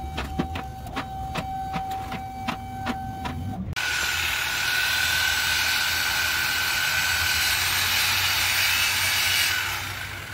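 A steady hum with regular clicking, then from a little under four seconds in a corded reciprocating saw cutting through the steel exhaust pipe at the mid mufflers of a Dodge Challenger Scat Pack, a loud continuous rasp that eases off near the end.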